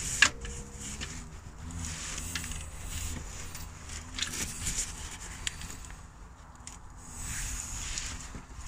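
Scattered clicks, knocks and scrapes of hands working the auxiliary heater water pump loose and pushing it out of its holder in the engine bay, with a sharp click just after the start.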